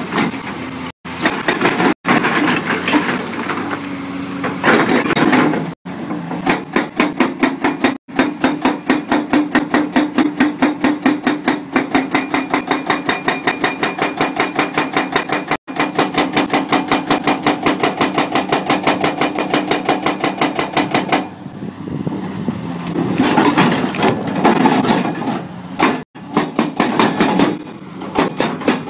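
Hydraulic rock breaker (CMB CM 550 TP) on a CAT 345 excavator, hammering in a fast, even run of blows, several a second, over the excavator's engine. It stops for about two seconds near the end, then starts hammering again.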